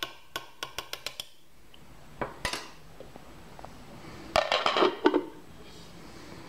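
A spoon clinks quickly several times against a slow cooker's ceramic crock, then there is a short rattle. About four and a half seconds in comes a louder clatter as the glass lid is set down on the crock.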